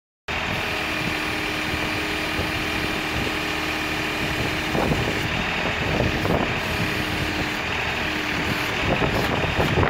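Kioti NX 6010 tractor's diesel engine running steadily, cutting in abruptly just after the start, with a few clanks from about halfway on.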